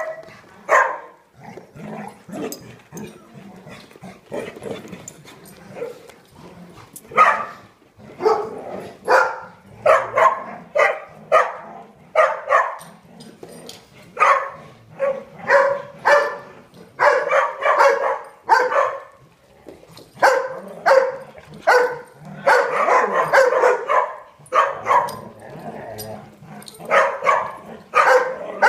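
Dogs barking during rough group play, a steady run of short barks and yips, coming thicker and faster in the second half.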